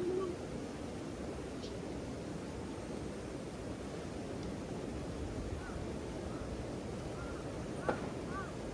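Steady rushing outdoor noise with no clear source. From about halfway through, a few faint short high chirps repeat, and there is one sharp click shortly before the end.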